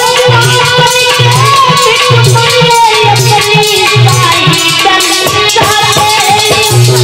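A woman singing long, wavering held notes, accompanied by a steady percussion beat with rattles and drum.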